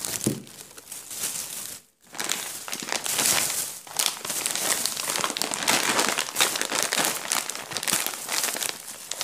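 Thin plastic shopping bags crinkling and rustling as hands rummage through them. The noise is dense and nearly continuous, with a brief gap about two seconds in.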